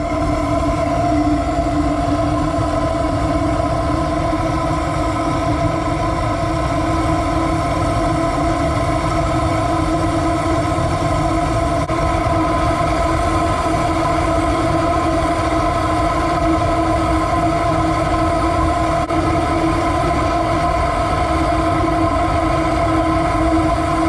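Propane tiger torch burning into the end of a steel-pipe water heater, turned up high: a steady rushing flame noise with a steady hum running through it.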